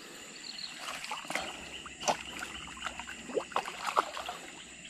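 Giant snakehead thrashing in shallow water at the bank edge after being landed: a string of small, irregular splashes and sloshes, the sharpest about two seconds in and near the end. Insects keep up a steady high chirring behind it.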